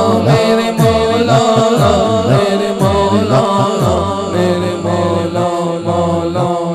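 A man singing a naat into a microphone, holding and bending long melodic lines, over a steady low rhythmic backing chant from other men.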